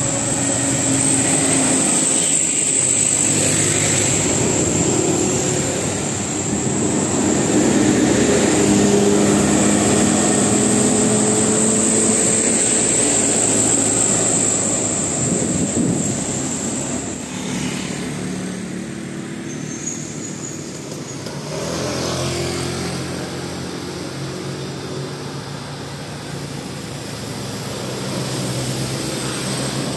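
A bus engine running, its pitch shifting up and down as it revs. A steady high whine sits over it and stops about seventeen seconds in.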